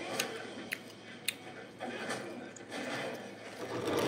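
A person chewing a mouthful of rice and fish with the mouth closed, with a few sharp wet mouth clicks in the first second or so and soft squelchy chewing after.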